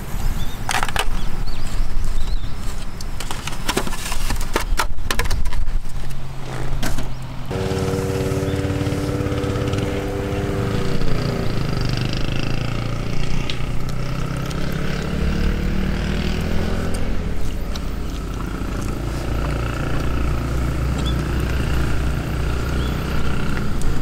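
Clatter and knocks, then from about seven seconds in a motor engine running steadily, its pitch dropping about three seconds later and shifting after that.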